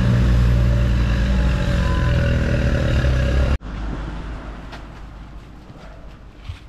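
A motor vehicle's engine running loudly and steadily. It cuts off suddenly about three and a half seconds in, leaving a much quieter noise that fades away.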